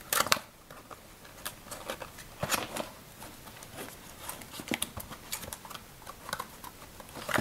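Small cardboard box being opened by hand: the tuck flap is scraped and pulled open, with scattered light clicks and rustles. The loudest scrape comes just at the start.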